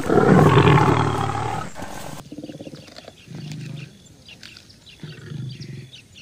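Tiger roar sound effect, loud at the start and fading away over about two seconds, followed by two shorter, quieter low growls.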